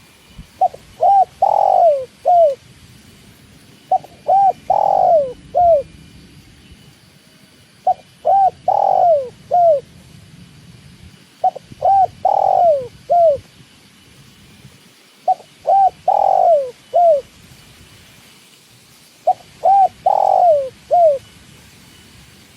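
Spotted dove (tekukur) cooing: six song phrases at about four-second intervals, each a few short coos, one longer falling coo, and a short closing note.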